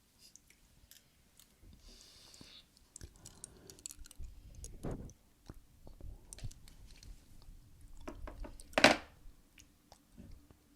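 Close-miked ASMR trigger sounds: scattered soft clicks and crackles, like chewing or crunching, with a brief rustle about two seconds in and a louder crunch near the end.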